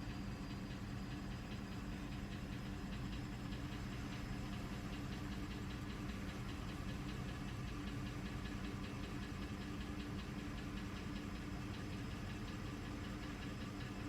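Mercedes W211 E350's V6 engine running steadily at idle with a rapid, even knocking tick, a strange knock the owner is embarrassed by.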